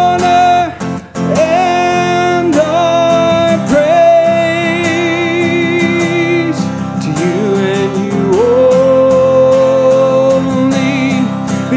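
Man singing long held notes of a modern hymn with vibrato, accompanied by his own strummed acoustic guitar.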